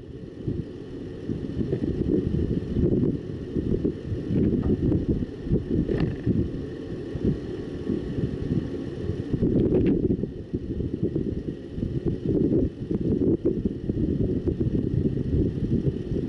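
Gusty wind buffeting the microphone: a low rumbling noise that swells and dips irregularly with the gusts.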